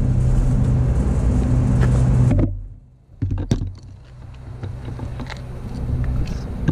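Steady low engine-like hum of a motor vehicle that cuts off abruptly about two and a half seconds in. A few sharp knocks and clicks of handling close to the RC car's camera follow as the bananas are put back in its basket.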